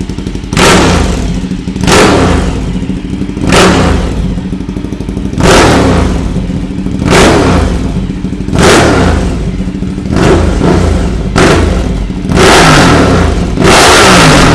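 Ducati Diavel's L-twin engine on a custom exhaust being blipped to high revs about ten times over an idle, each rev rising and falling back quickly. The last two revs, near the end, are held longer. The revs are loud, peaking at 129 dB on a meter at three feet.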